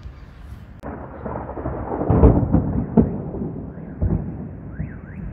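Thunder: a sudden crack about a second in swells into a rolling rumble that peaks around two seconds in, with sharper claps about three and four seconds in, then dies down.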